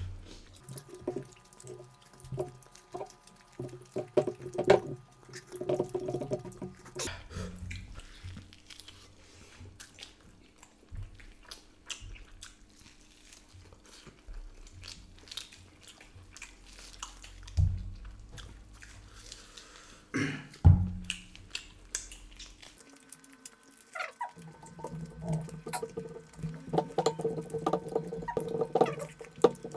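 Close-up eating sounds: hands squishing rice into mutton curry, chewing and lip smacking, with many small wet clicks and a couple of louder smacks.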